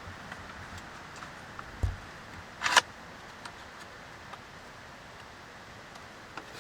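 Camping gear being handled and set down: a low thump about two seconds in, then a sharp clatter just before three seconds, with a few light ticks, over a steady background hiss.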